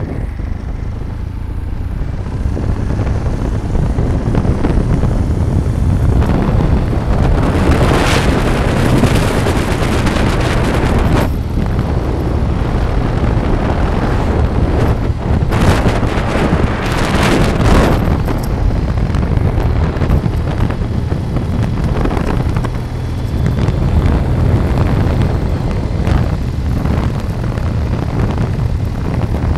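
Road noise of a moving vehicle, a steady low rumble, with wind buffeting the microphone. The buffeting grows heavier for a few seconds about a quarter of the way in and again just past the middle.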